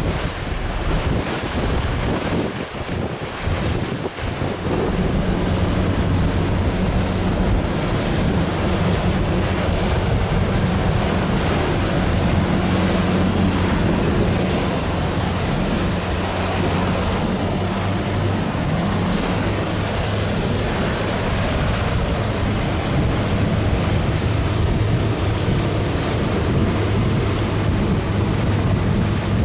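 Boat under way: wind buffeting the microphone and water rushing past the hull, with a steady engine drone that comes up about five seconds in and holds.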